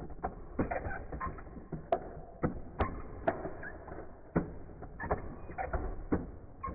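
Irregular plastic clicking and clattering from a push-button toy fighting base as its red buttons are pressed over and over, turning the big-figures and swinging their arms. There are a few sharper snaps about two to three seconds in.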